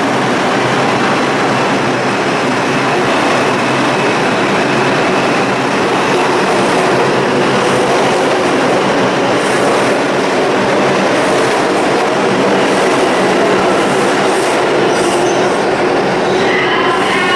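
New York City subway train moving through the 86th Street station on the Lexington Avenue line, a loud steady rumble of steel wheels on the rails.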